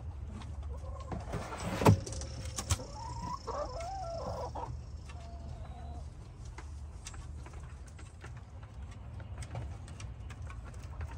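Chickens clucking in the coop, with short wavering calls a few seconds in. There is a sharp knock about two seconds in, over a steady low rumble.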